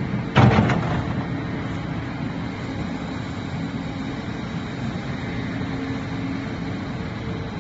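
Crawler excavator running steadily, with one loud knock about half a second in that rings briefly.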